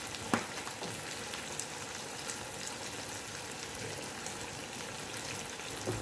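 Meatballs in tomato sauce sizzling gently in a frying pan, a steady sizzle with faint crackles, and one light click shortly after the start.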